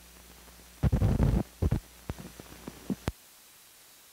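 Run-out noise from an old film's optical soundtrack as blank leader passes: a low hum with scattered crackles, a cluster of loud low thumps about a second in, and more pops. The hum cuts off suddenly about three seconds in, leaving faint hiss.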